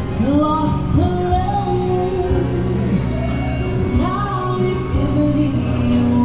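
Music with a singer, a sung melody of held and sliding notes over a steady band accompaniment.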